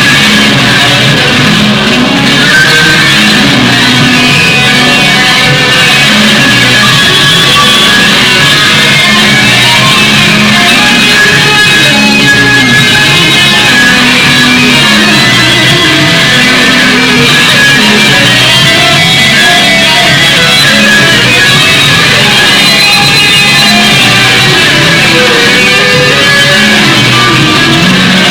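Loud, continuous guitar-based rock music.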